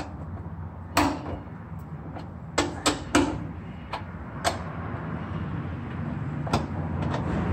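A few scattered sharp metallic clicks and knocks from a long-handled ratchet and socket working loose the bolts of a car's exhaust center brace, over a steady low hum.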